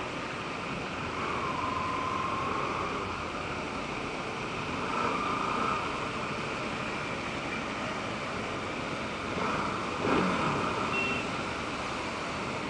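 Steady rush of traffic and wet-road noise heard from a moving motorcycle in the rain, with two faint brief tones about two and five seconds in.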